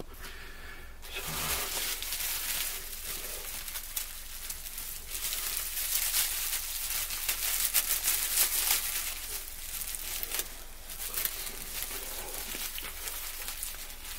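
Dry reed-grass tinder nest rustling and crinkling in the hands as it is gathered up and folded around a glowing fire-drill ember. It starts about a second in and goes on unevenly, with dry crackly detail.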